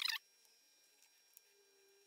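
A short high-pitched squeak right at the start, then near silence: quiet workshop room tone.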